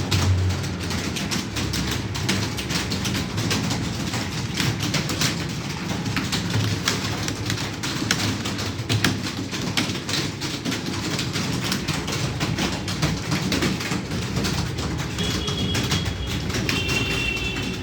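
Many computer keyboards clattering at once, several typists keying fast in a dense, irregular stream of clicks over a low hum. A few short high tones sound near the end.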